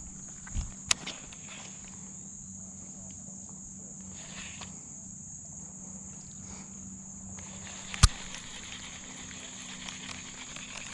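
A steady high-pitched insect chorus, with a few sharp clicks or taps: two near the start and a louder one about eight seconds in.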